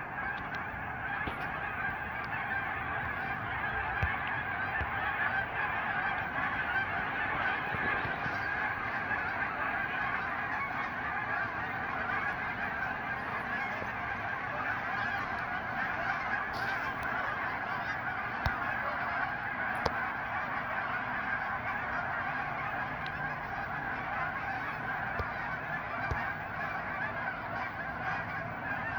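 A large flock of hundreds of geese honking together in a dense, continuous chorus.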